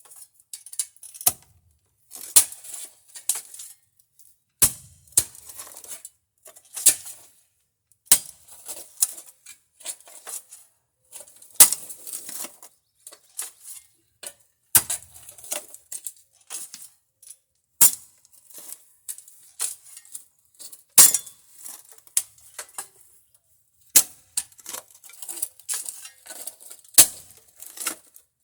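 Steel digging tool chopping into hard ground full of white flint rock: sharp metallic clinks every two to three seconds, with quieter scraping and crunching between strikes.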